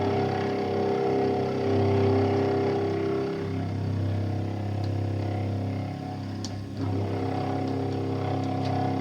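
Milling machine running steadily while the cutter makes a light smoothing pass across a Nagant revolver cylinder's ratchet teeth. It is a steady hum of several tones, dipping briefly about two-thirds of the way through.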